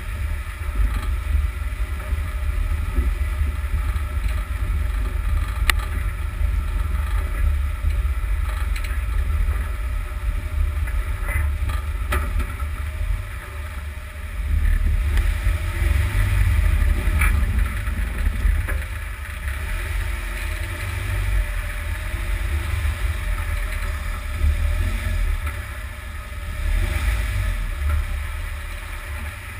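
Heavy low rumble of wind buffeting and road noise at a camera mounted under a UAZ Patriot by the front wheel while it drives on a dusty road, with a few sharp ticks scattered through.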